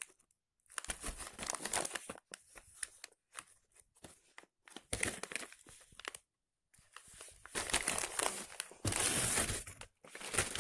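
Plastic and paper packets of horse treats crinkling as they are handled, in irregular spurts with short pauses; the loudest crinkling comes near the end.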